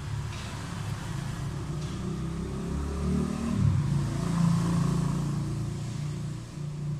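Low-pitched engine or motor running, its pitch wavering and gliding around the middle.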